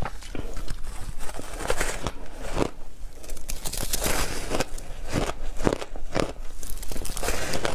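Block ice coated in milk powder being bitten and crunched between the teeth: an irregular run of crisp, cracking crunches, several a second.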